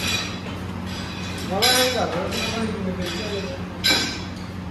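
Metal dumbbell plates clinking and knocking as a pair of dumbbells is picked up, with two sharper clanks: one about a second and a half in, the other near the end. A low steady hum runs underneath.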